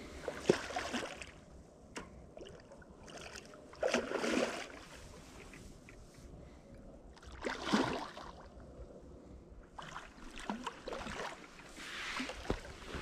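Water splashing and sloshing at the river's edge in irregular swells every few seconds, with a few sharp knocks between them.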